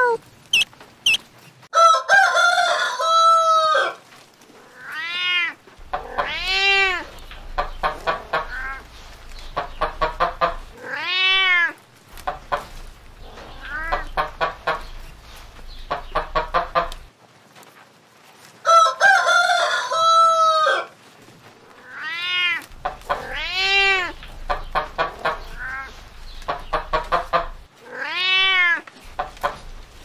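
A domestic hen clucking and calling: short squawks that rise and fall in pitch, quick runs of clucks in between, and a longer drawn-out call twice, about two seconds in and again near nineteen seconds.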